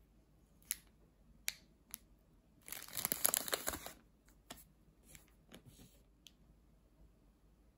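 Thin clear plastic wrapper crinkling as it is pulled open and off a daifuku rice cake: a few single crackles, then about a second of dense crinkling near the middle, then scattered lighter crackles.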